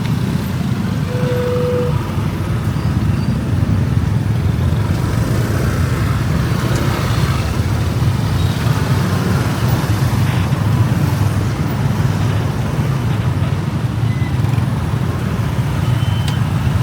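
Steady street traffic noise: a continuous low rumble of passing motorbikes and cars, with a short steady tone, like a horn, about a second in.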